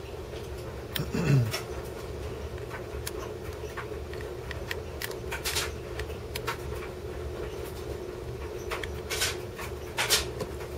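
Light clicks and taps of a small precision screwdriver working tiny screws out of an iPod Touch's metal casing, over a steady low hum. A brief falling tone sounds about a second in.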